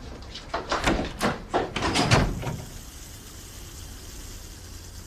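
A quick run of knocks and clatter, about eight in two and a half seconds and heaviest near the end of the run, followed by a faint steady hiss.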